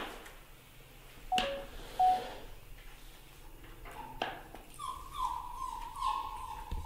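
Thin, high whimpering cries from a young animal: two brief squeaks in the first two seconds, then from about four seconds in a run of cries that fall slightly in pitch. A few light knocks are mixed in.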